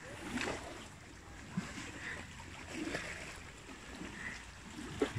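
Muddy river water sloshing and swishing around an elephant as it wades through the river, in uneven swells, with a sharp brief knock near the end.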